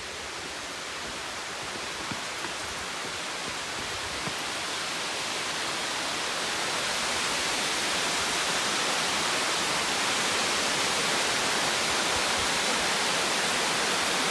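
Waterfall rushing: a steady hiss of falling water that grows louder over the first half and then holds steady.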